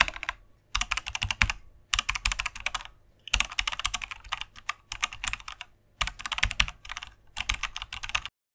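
Computer keyboard typing sound effect: bursts of rapid key clicks, each about a second long with short pauses between, stopping abruptly near the end.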